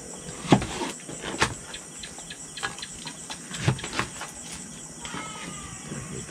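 Kitchen knives chopping eggplant and string beans on plastic cutting boards: irregular knocks of the blades hitting the boards, over a steady high chirring of crickets.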